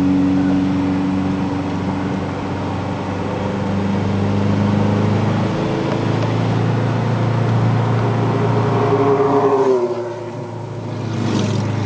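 Toyota Tacoma pickup's engine and road noise under way, heard from inside the cabin. The engine climbs in pitch as the truck accelerates, then drops off suddenly about ten seconds in.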